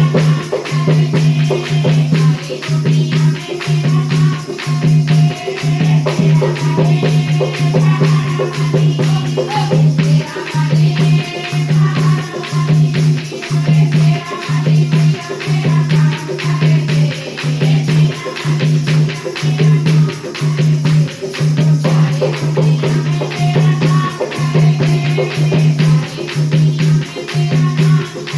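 Bhajan music: a deep beat pulsing evenly, with fast rattling percussion over it and a melody line above.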